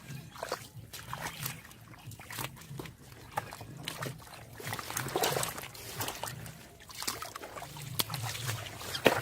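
Water splashing and sloshing in irregular bursts as hands work through shallow river water and water hyacinth, with a louder run of splashes about five seconds in.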